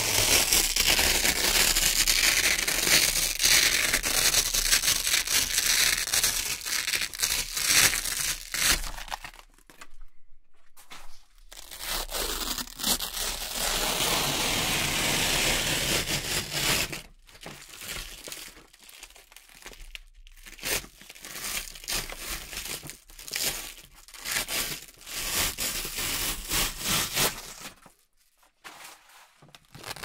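Velcro hook-and-loop strips being peeled apart, a long unbroken rip for the first several seconds, then shorter rips with brief pauses between them, dropping almost to silence near the end.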